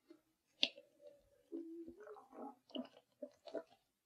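Faint mouth and throat noises from a man as he raises a plastic cup of cider and sips from it, with a soft click about half a second in and a few low hummed sounds.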